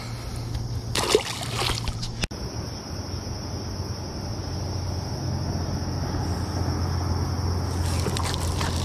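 A largemouth bass splashing into the water as it is released, a short burst about a second in, over a steady low hum and water sounds around the boat.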